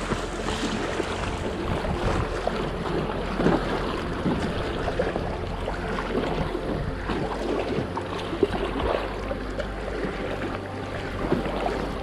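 Paddling a packraft: irregular paddle splashes and water lapping against the inflatable boat, with wind rumbling on the microphone.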